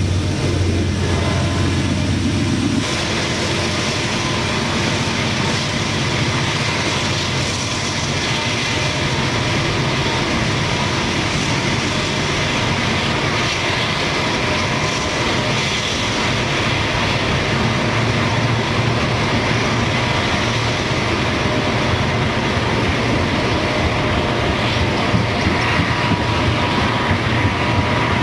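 Freight train running past: Norfolk Southern diesel locomotives working a loaded coal train, a steady engine drone under rumbling wheels on rail. The low drone changes about three seconds in, and a few sharp clicks come near the end.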